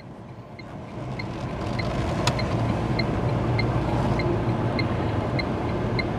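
Automatic car moving off, heard inside the cabin: engine hum and road noise grow louder over the first couple of seconds, then hold steady. A turn-signal indicator ticks evenly about every 0.6 seconds, with one sharper click a little past two seconds in.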